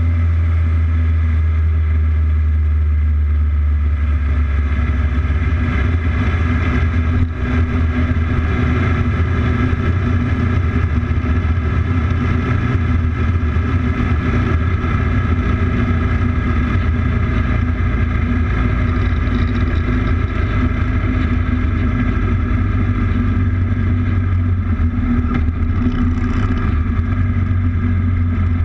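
Motorcycle engine running at a steady cruise, heard from on board, its pitch holding level, with a brief knock about seven seconds in.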